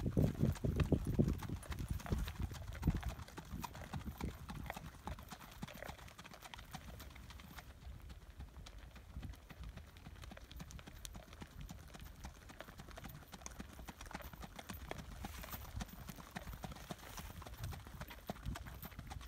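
Horse's hooves beating on a dirt track as it is ridden past, a quick run of hoofbeats that is loudest in the first few seconds and then steadier and quieter.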